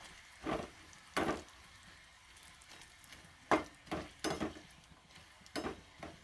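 Slotted metal spoon knocking and scraping against an aluminium kadai as crisp fried pappadam pieces are turned and scooped out of the oil: about seven separate knocks, spaced irregularly, with a cluster of them from about three and a half seconds in.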